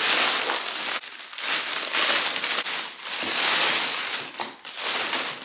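Crinkly packaging being handled and pulled open, rustling in irregular surges that are loudest in the middle.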